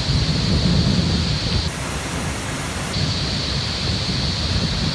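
CSX freight train passing close by: a steady low rumble and rush of noise with no clear beat or horn.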